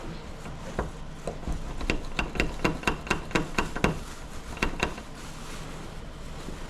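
A rapid series of sharp taps and clicks from a locksmith's tool working a locked door lock, about four to five a second, densest and loudest in the middle and stopping about five seconds in.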